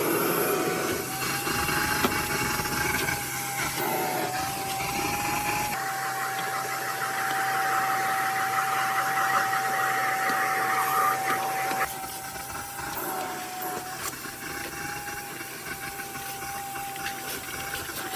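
Vacuum cleaner running on car interior surfaces: a steady motor whine that wavers slightly in pitch over rushing air, with sudden changes in the sound about six and twelve seconds in and quieter after the second.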